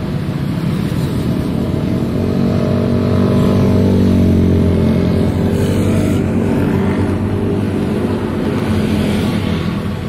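Small motorcycles and scooters passing close by on a road one after another, their engines running in a continuous stream. The sound swells as a group goes by about four seconds in, and again near the end.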